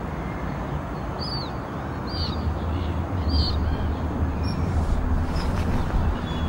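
Wind buffeting the microphone, a steady low rumble that grows stronger after about two seconds. A bird calls three times, about a second apart, in the first half.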